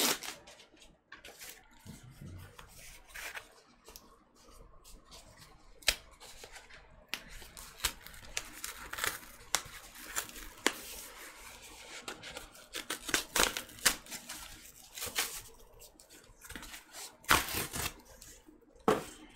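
Corrugated cardboard shipping box being torn open along its perforated tear strip and flaps: repeated ripping and rustling of cardboard, with sharp snaps about six seconds in and again near the end.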